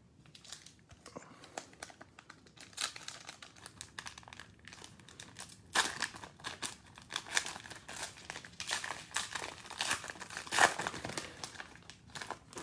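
Cellophane wrapper of a Prizm cello pack of trading cards crinkling and tearing as it is opened and the cards are pulled out: a dense crackle that grows louder about halfway through.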